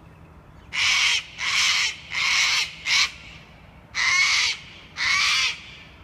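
A bird giving six harsh, rasping, caw-like calls, each about half a second long: four in quick succession, then a pause, then two more.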